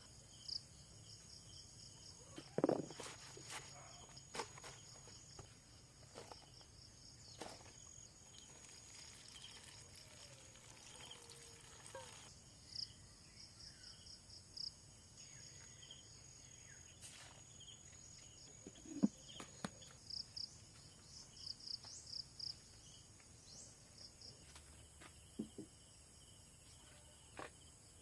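Insects chirping in pulsing high trills over a steady high buzz, with scattered short knocks and clicks, the loudest about 3 seconds in and again near 19 seconds.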